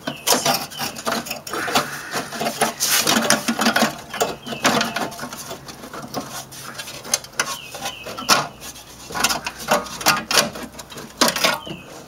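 Sheet-metal engine tin of a 1971 Volkswagen Beetle scraping, rattling and clanking as it is worked out of the engine bay past the rubber engine seal by hand: a dense run of irregular metal clicks and scrapes.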